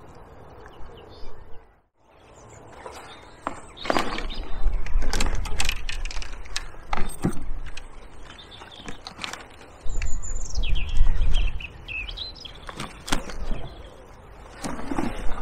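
A small bird calls once with a high call that steps down in pitch, about ten seconds in. Behind it run gusts of low rumble and a scatter of sharp knocks and clicks close to the microphone.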